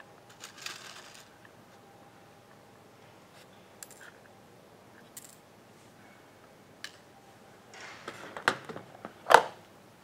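Small metal crimp pins and plastic connector housings being handled in a plastic compartment organizer box: a brief rattle about half a second in, a few faint clicks, then a cluster of sharp clacks near the end, the loudest about nine seconds in.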